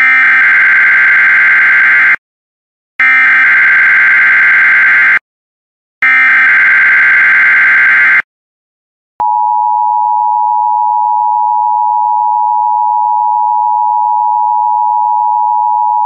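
Emergency Alert System SAME header: three identical rasping digital data bursts of about two seconds each, a second apart. About nine seconds in, a steady, loud two-pitch EAS attention tone begins.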